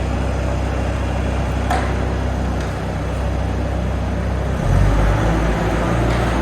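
Engine running steadily; about four and a half seconds in its note changes and it gets a little louder, with a single click shortly before the two-second mark.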